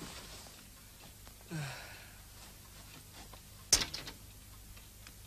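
A man's short sigh, then a sharp click from a door, followed by a few smaller clicks, in a quiet small room.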